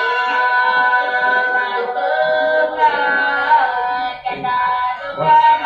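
Singing with musical accompaniment: long held notes that change pitch every second or so.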